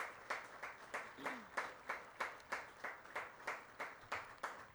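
Hands clapping steadily, about three claps a second, close to the microphone, in a round of applause from the crowd.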